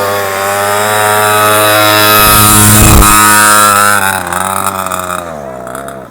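Small dirt bike engine revving under throttle: it climbs and holds at high revs, then drops back about four seconds in.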